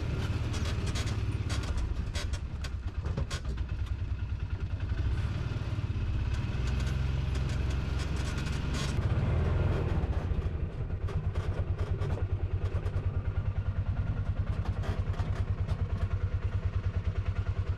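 An engine running at low speed with a steady low throb, and scattered clattering knocks in the first half. After about eleven seconds the throb settles into an even, rapid pulsing.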